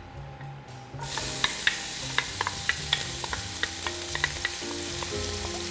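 Onion dropped into hot cooking oil in a pan, starting to sizzle suddenly about a second in and going on sizzling steadily with scattered pops and crackles. This is the onion beginning to fry before it browns.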